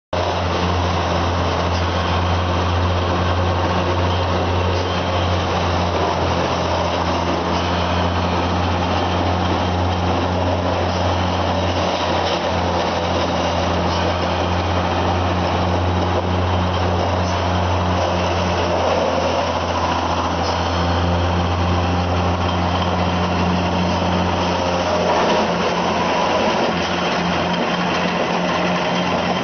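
Wood chipper running: a steady, loud machine drone with a constant low hum and a hiss above it. The low hum weakens a little near the end.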